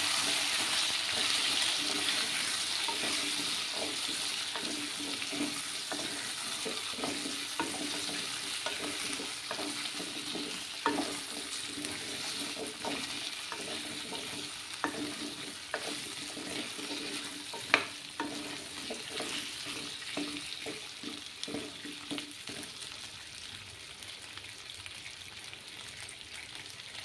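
Chunks of taro (ghati kochu) sizzling as they fry in mustard oil in a nonstick wok, stirred with a wooden spatula that taps and scrapes against the pan. The sizzle slowly dies down, and there are a few louder knocks of the spatula, about 11 and 18 seconds in.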